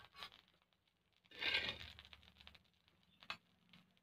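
Metal spatula scraping fried brinjal pieces off an iron griddle, with one short scrape about a second and a half in and a single light click near the end.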